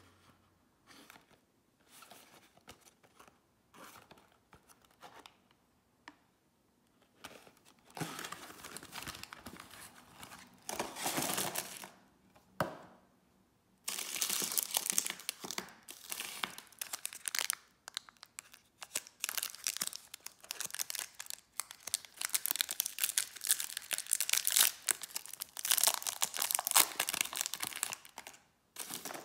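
Packaging of Milka Minis Choco Cake handled with light clicks, then torn open, and from about halfway through the metallic foil wrappers of the individually wrapped mini cakes crinkle loudly as they are unwrapped.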